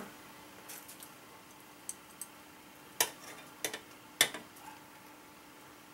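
Kitchen tongs clicking and tapping against a stainless steel saucepan and a wire mesh strainer while lifting boiled Spam slices out of the water: a handful of sharp clicks spread over a few seconds, the loudest about three and four seconds in.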